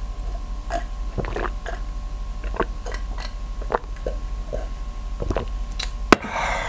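A person gulping beer from a glass: a string of short, irregular swallowing sounds. Near the end the glass is set down with one sharp knock, the loudest sound, and a breathy noise follows.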